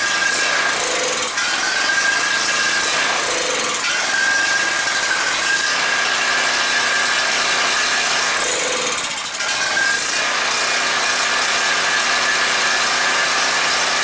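WEN 4050 portable generator's small gasoline engine running steadily on choke after a pull start. It will only run with the choke partly on, which the owner takes for a carburetor about half plugged with old varnished gas.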